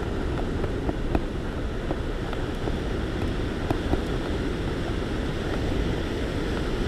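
Sea surf washing against a rocky shore, a steady rushing noise mixed with wind on the microphone, with a few faint clicks.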